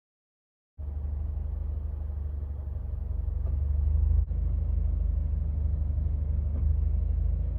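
Toyota 86 on the move: a steady low engine and road rumble that starts abruptly about a second in, with a momentary break just past halfway.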